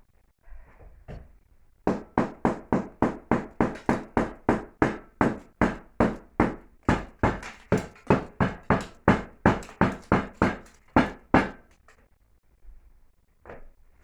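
A hammer striking the old brickwork of a fireplace being demolished, with about three sharp blows a second for roughly ten seconds, after a few lighter knocks. The blows stop suddenly.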